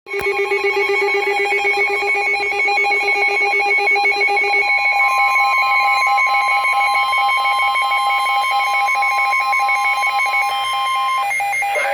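NOAA Weather Radio alert signal sounding ahead of a Flash Flood Warning: buzzy electronic alarm tones for the first few seconds, then a single steady high warning tone from about five seconds in that stops shortly before the end.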